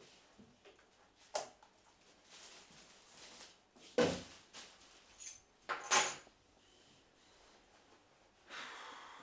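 A door thuds shut about four seconds in, and a bunch of keys jangles about two seconds later, with a light click before the thud and a soft rustle near the end.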